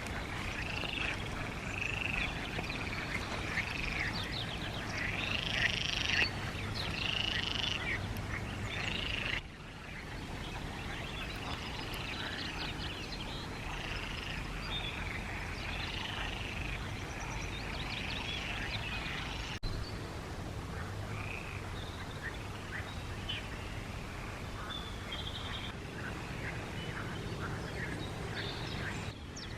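A chorus of frogs croaking, many short calls repeating and overlapping, with a steady low hum underneath.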